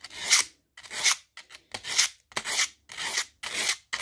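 Folded 280-grit wet and dry abrasive paper rubbed up and down the steel teeth of a leather pricking iron, in short scratchy strokes about one and a half a second, polishing the teeth so they slide through leather without sticking.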